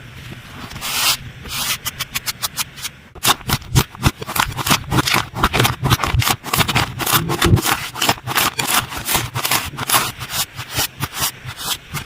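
Slime being squeezed and pressed by hand, giving a rapid, uneven run of sticky clicks and pops that grows denser about three seconds in.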